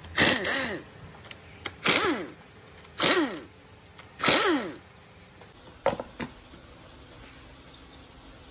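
Pneumatic impact wrench loosening the rear-cover bolts of a car AC compressor: four short bursts about a second apart, each falling in pitch as it runs down. A couple of light clicks follow, then quiet.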